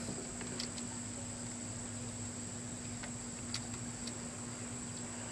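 Steady high-pitched tone over a low hum, with a few faint clicks scattered through it.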